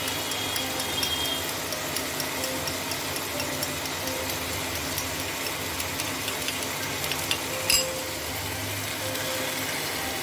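Metal spoon beating eggs in a ceramic bowl, a run of light quick clicks against the bowl that thickens after the middle, with one sharper knock about three quarters of the way through. Underneath, a steady hum and the soft sizzle of spice paste frying in the pan.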